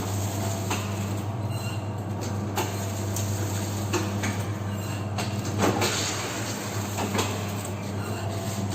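Cooking-oil packing machine for 1-litre pouches running with a steady electric hum and a sharp mechanical clack every second and a half or so as it cycles.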